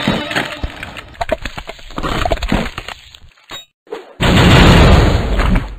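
Cartoon fight sound effects: a run of sharp cracking and smashing impacts, then a loud crashing burst lasting about a second and a half near the end.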